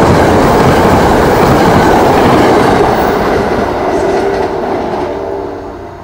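NJ Transit express commuter train passing through at speed without stopping: a loud rush of steel wheels on the rails that begins to fade about halfway through as the train pulls away.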